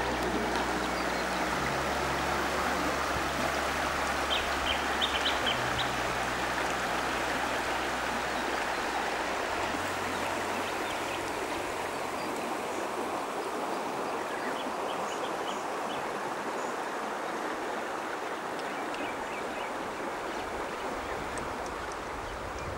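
Shallow river water running and rippling over stones in a steady rush, with a few short high chirps now and then. A low steady hum sits under it for about the first ten seconds.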